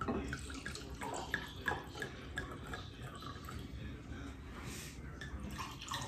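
White wine poured from a bottle into stemmed wine glasses: a faint, steady trickle of liquid with small ticks scattered through it.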